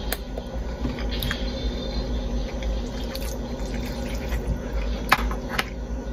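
A person chewing a mouthful of spaghetti with sauce, with a few light clicks of a metal fork against the bowl, over a steady low hum.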